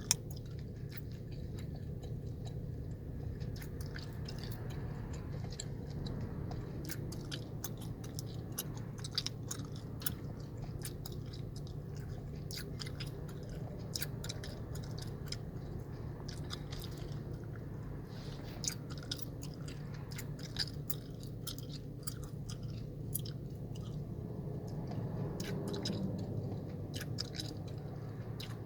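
Gum chewing close to the microphone: wet smacking with frequent sharp clicks and pops, going on without a break. Underneath is the steady low hum of a car's cabin.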